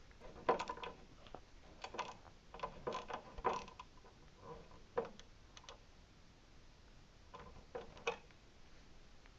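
Irregular metal clicks and clinks of a hand tool and bolt hardware on a treadmill frame, as the belt roller's tension is being set. The clicks come in short clusters with gaps between them.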